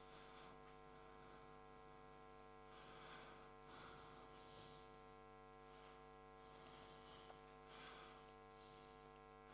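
Near silence with a faint, steady electrical mains hum made of many evenly spaced steady tones, and a few faint, brief soft noises over it.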